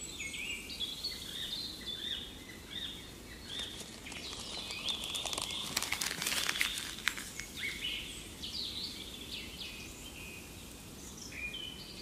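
Birds chirping and singing in short repeated phrases over a steady outdoor background hiss. About five to seven seconds in, there is a flurry of sharp clicks.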